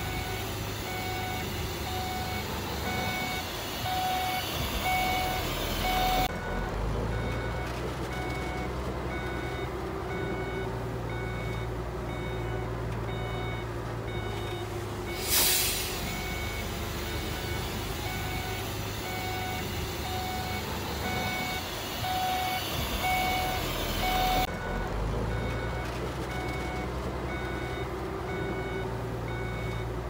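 Heavy construction machine's reversing alarm beeping at an even pace over a running diesel engine, whose low rumble swells twice. About halfway through comes one short, sharp hiss.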